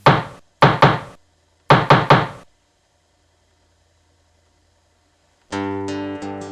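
Six sharp knocks in a quick pattern of one, two and three. After a short silence, acoustic guitar music starts near the end.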